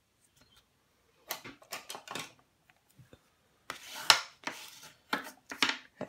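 Bone folder rubbed along the fold of a white cardstock card to crease it sharply: groups of short scraping strokes, the loudest about four seconds in.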